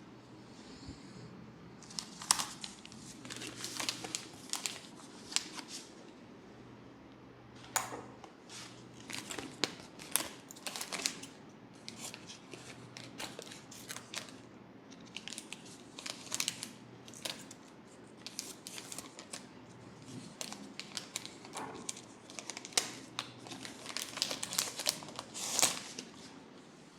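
Fingers rubbing and scratching through hair against the scalp during a head massage: an irregular run of crinkly, crackling rustles with sharper scratches here and there.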